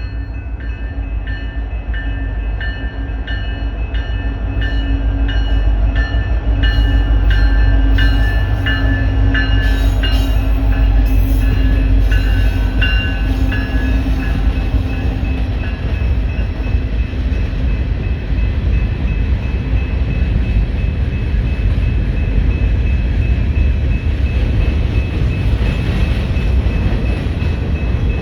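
A long mixed freight train rolls past behind its diesel locomotives, a heavy rumble of engines and wheels on rail that swells over the first few seconds and then holds steady. Through the first half there is also a regular ringing about twice a second.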